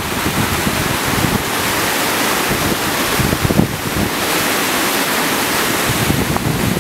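Flash-flooded creek water rushing and churning in a steady wash of noise, with wind gusting on the microphone in low rumbles.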